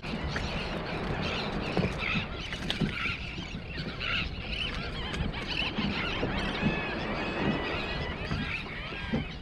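Many birds calling in short, high, arched chirps over a steady hiss, the calls coming thicker in the second half.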